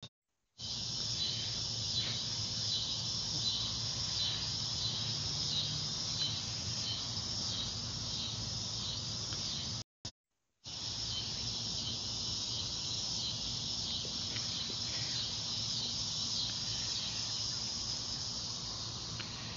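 Insects chirring in a steady, high-pitched chorus with a regular pulsing rhythm. The sound drops out briefly twice, near the start and about halfway through.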